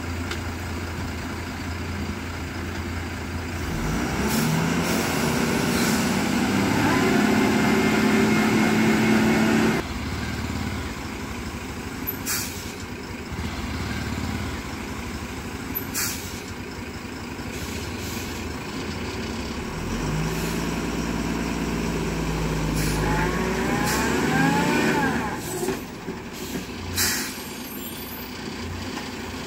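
Diesel engine of a heavily loaded 14-tyre lorry running, twice swelling up as it works hard on the hill bend and then suddenly dropping back, with a few short sharp hisses like air brakes.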